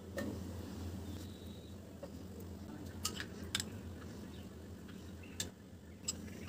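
Four light clinks of a spoon against a glass mixing bowl, spread over several seconds, over a low steady hum.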